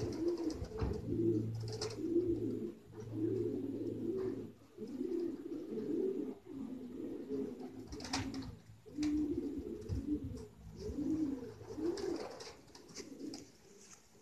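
Racing pigeons cooing: low, rounded coos repeating one after another, about one a second, with a brief scratchy sound about eight seconds in.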